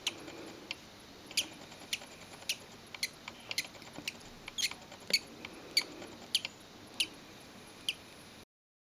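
Newly hatching budgerigar chick peeping: short, high cheeps, roughly one or two a second.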